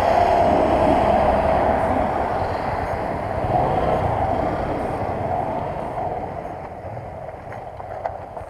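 Small commuter motorcycle under way, its engine running under a steady rush of wind on the microphone. The sound eases off and gets quieter over the last few seconds as the bike slows onto rough grass, with a few small knocks near the end.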